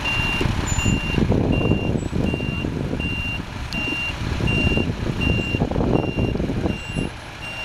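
A vehicle's reversing alarm beeping: one high steady beep repeating evenly, about three beeps every two seconds, over an uneven low rumbling noise.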